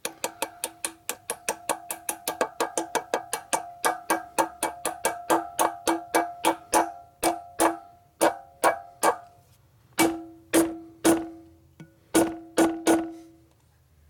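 A hammer striking a steel bearing driver to drive a sealed bearing into the rear wheel hub of a 1972 Harley-Davidson Ironhead Sportster, each blow ringing metallically. The taps come quickly, about four a second, then slow to about one a second. A few louder, longer-ringing blows near the end seat the bearing.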